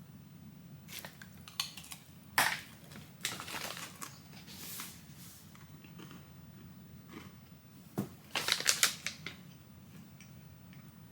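A package of cookie butter holiday bark being opened and the candy handled: crinkling and crackling with sharp snaps, in three short flurries, the last one loudest.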